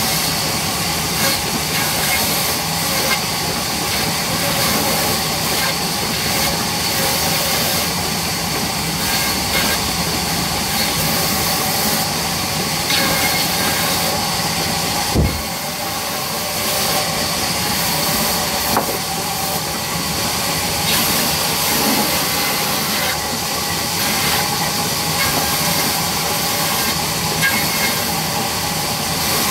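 Large table band saw running steadily and ripping wooden planks fed through its blade. A single sharp knock about fifteen seconds in.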